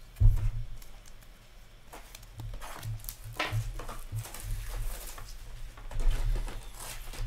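A sharp thump just after the start, then soft tapping and rustling as stacks of hockey trading cards are handled and squared on a tabletop.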